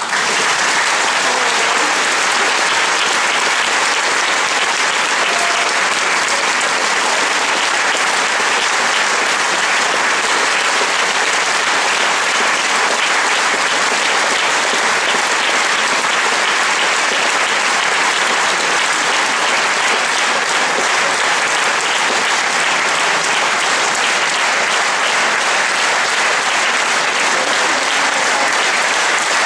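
Concert-hall audience applauding, breaking out suddenly and then holding loud and steady.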